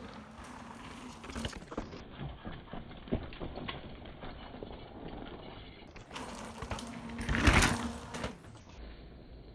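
Merida One-Sixty mountain bikes rolling over a gravel trail, with tyre crunch and frame and chain rattles and knocks. In stretches the audio is slowed down and muffled by the slow-motion recording. A loud rush comes about seven and a half seconds in as a bike passes close.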